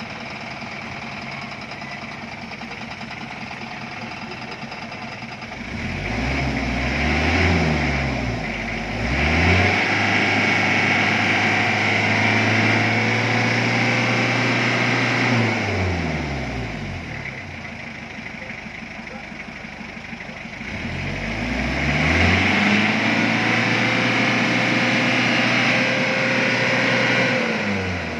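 A 2004 Hyundai Grace van's engine idling and then revved twice, each time held at high revs for several seconds before falling back to idle. It is a free-rev test to show the exhaust smoke after an oil-additive treatment.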